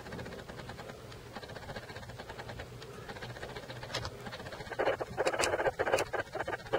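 A cat chewing and licking at a piece of food, a fast run of small wet clicks. About five seconds in, a louder rushing noise comes and goes in short stretches.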